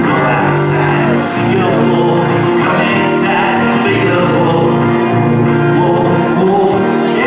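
Two acoustic guitars strummed in a live duo performance, with a man singing along.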